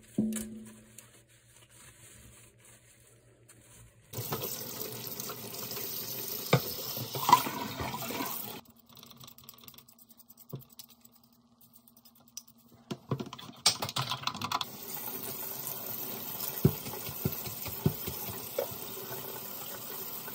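Plastic incubator parts being hand-washed in a stainless steel sink: water sounds mixed with light clicks and knocks of the plastic pieces and scrubbing. The sound comes in two spells of several seconds with a quiet gap between.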